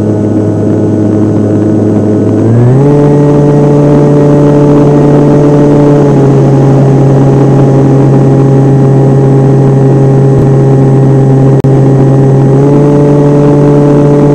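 Radio-controlled airplane's motor and propeller running, recorded from onboard: a loud steady hum whose pitch steps up about two and a half seconds in, dips a little around six seconds, and rises again near the end as the throttle is changed, over a rush of airflow noise.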